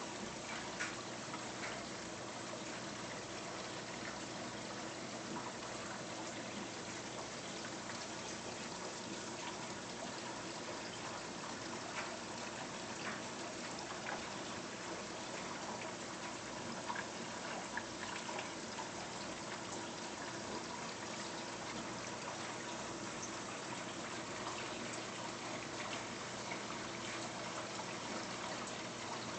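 Water circulating in a saltwater reef aquarium: steady trickling and splashing with a faint steady hum underneath and a few small scattered ticks.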